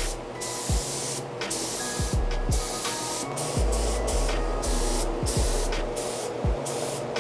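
Compressed-air spray gun hissing in short bursts, the trigger pulled and released many times, spraying Cerakote coating.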